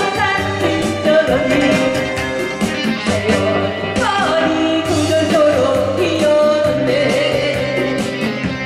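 A woman singing a song into a microphone over amplified accompaniment with a steady beat; about four seconds in, a long sung note slides downward.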